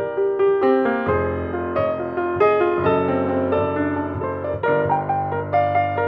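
Yamaha grand piano played solo: chords and melody over deep bass notes that come in about a second in and are held.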